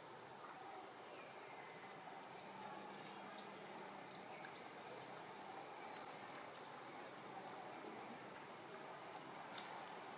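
Faint, steady high-pitched insect chorus droning without a break, with a few faint clicks.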